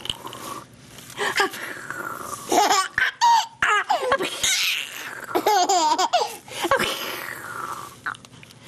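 A five-month-old baby laughing in a series of high-pitched bursts with short breaks between them, starting about a second in.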